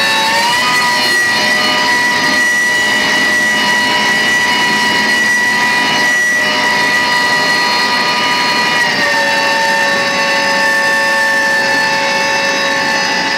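All-gear fishing winch spinning at speed under test: a loud, steady mechanical whine. It steps up slightly in pitch just after the start and drops a little about nine seconds in.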